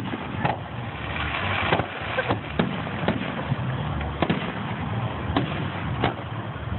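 Aerial fireworks display: shells launching and bursting in a string of sharp bangs, roughly one every half second to second, over a steady low background rumble.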